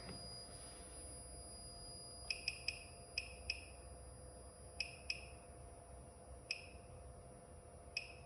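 Short electronic key beeps from a RIDEN RD6012 bench power supply as its voltage setting is stepped down: nine quick high beeps in clusters, three in fast succession about two seconds in, then pairs and singles. Under them a faint steady high whine fades out about halfway through.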